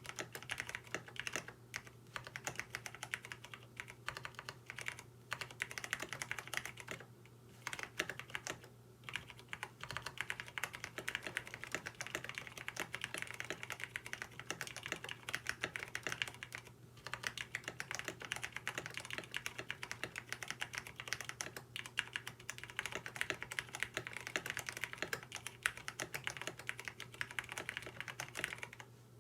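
Continuous typing on a KBD67 Lite mechanical keyboard with lubed Cherry MX Brown tactile switches and a PE foam mod: a dense stream of keystroke clacks with a couple of short pauses. The switches have no films, and the owner hears them as scratchy with annoying 'tic' noises from the play in the housings.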